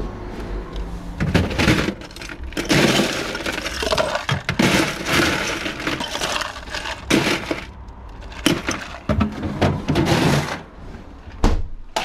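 Ice cubes clattering and rattling in a run of bursts as they are scooped from a freezer drawer into a clear plastic cup. A single knock near the end as the cup is set down on the counter.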